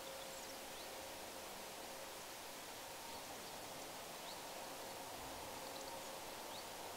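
Faint outdoor ambient noise, a steady hiss with a few brief high chirps of small birds scattered through it.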